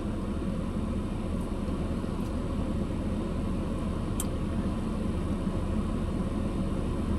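Steady low rumble of a car interior with the engine running, and a faint click about four seconds in.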